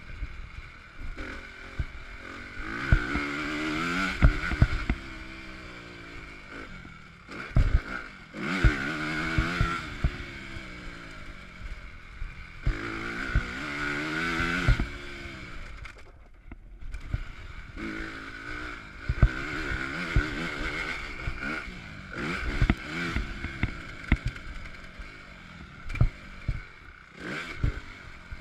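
2015 Honda CRF250 single-cylinder four-stroke motocross engine, recorded close on the bike while it is ridden round a dirt track. The engine revs up and falls back again and again, with sharp knocks and clatter between the revs.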